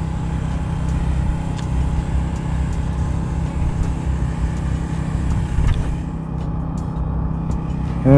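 A steady low rumble, with two faint clicks about one and a half and five and a half seconds in.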